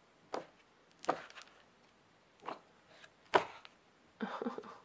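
Pages of a large hardcover art book being turned by hand, a few quick flips with a sharp paper snap about a second apart, the loudest about three and a half seconds in, then a short rustle near the end.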